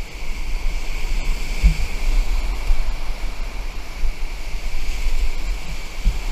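Whitewater rapids rushing loudly around a stand-up paddleboard, heard from on the board, with a gusty low rumble of wind and spray buffeting the camera microphone.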